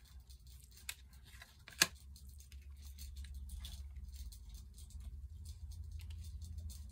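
Tarot cards being handled, with scattered light clicks and taps and one sharp click about two seconds in. A low steady hum comes up from about three seconds in.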